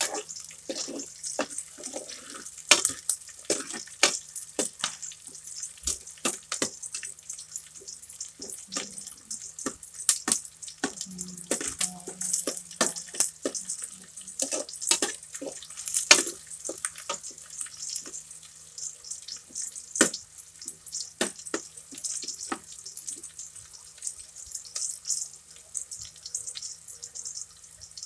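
Kitchen cooking sounds: a steady high hiss with many irregular sharp clicks and knocks, over a low steady hum.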